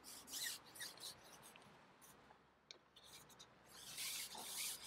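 Faint scratchy rubbing and scraping from a carbon fishing pole being handled and slid back out, in short strokes that run together and get louder near the end.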